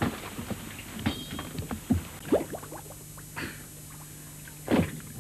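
Irregular splashing and sloshing of people wading through swamp water among reeds, over a steady low hum.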